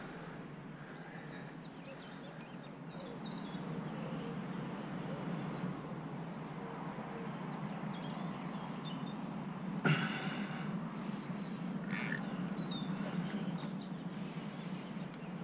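Faint bird calls, with a short high trill about three seconds in, over a low steady rumble. A sharp knock comes about ten seconds in and a smaller one near twelve seconds.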